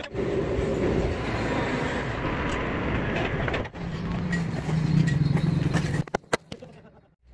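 Truck workshop noise over several quickly cut shots. A steady mechanical rumble gives way to a low steady hum partway through. A few sharp knocks come about six seconds in, and then the sound fades out.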